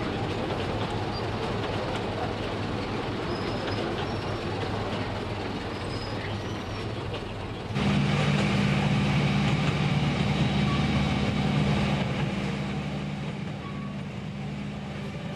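Small narrow-gauge mountain train running, heard from its open carriage: a steady rumble of wheels on rail. About halfway through the sound changes abruptly to a louder, steady low hum, which eases off near the end.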